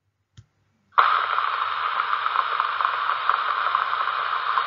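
A faint click, then a recorded rain sound effect: a steady hiss with crackling patter that starts abruptly about a second in.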